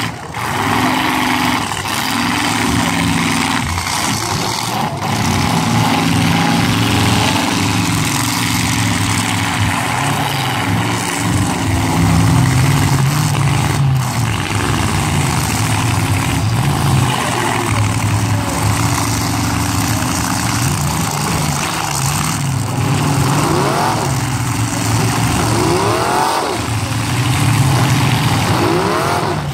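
Demolition derby cars' engines running and revving together, their pitch stepping up and down, with several rising revs near the end.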